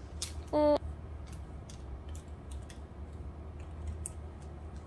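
Scattered light plastic clicks and taps as a pink plastic detangling brush is handled, fingers working at its flexible bristles, over a low steady hum.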